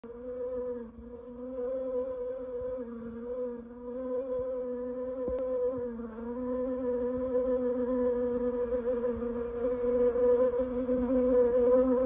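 A bee buzzing steadily: one low hum that wavers slightly in pitch and grows louder toward the end.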